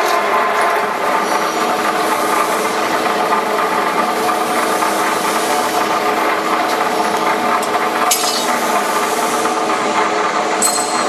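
A rebar straightening machine runs steadily, its motor and spinning straightening drum giving a constant whine of several tones over a rough scraping noise as steel rod is fed through. A few sharp clicks come near the end.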